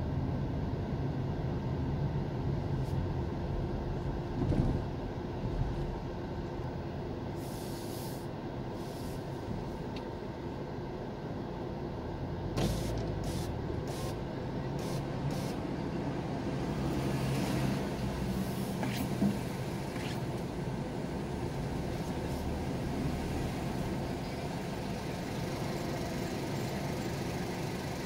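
A car's engine and road noise heard from inside the cabin, easing to a stop and pulling away again. A few sharp clicks come about halfway through, and there are short knocks near the start and later on.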